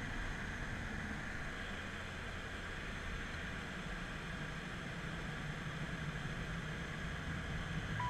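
Steady engine drone and road noise inside a BMW 5 Series (F10) sedan being driven at speed, heard from the cabin.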